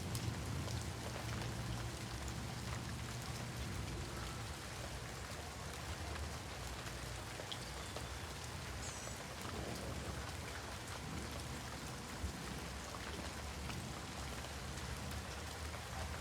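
Steady heavy rain during a storm, drops pattering on surfaces, with a low rumble that fades over the first few seconds.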